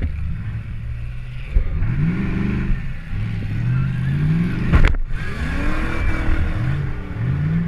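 Demolition derby car's engine revving up and down again and again, heard from the driver's seat, with one sharp bang just under five seconds in.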